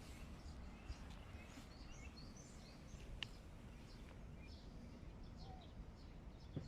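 Small birds chirping faintly with short, scattered calls over a low, steady background rumble, with a couple of sharp ticks.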